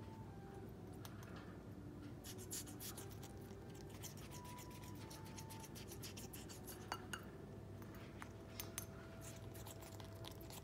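Cockatiel's beak tapping and scraping against a glass bowl as it eats, a fast run of small clicks that starts about two seconds in, with a few sharper ticks later.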